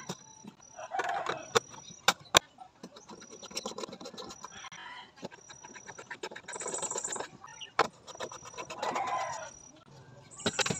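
Sharp plastic clicks and handling of small plastic parts as switch cover plates are snapped into place and bulbs are screwed into their lamp receptacles, the loudest clicks coming in a quick cluster about two seconds in. Birds call on and off in the background.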